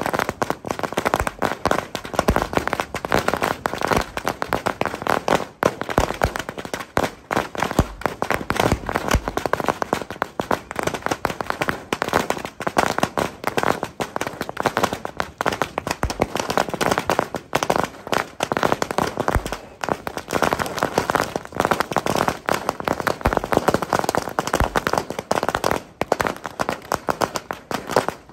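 Firecrackers going off in rapid, unbroken succession, a dense run of sharp bangs with no pause.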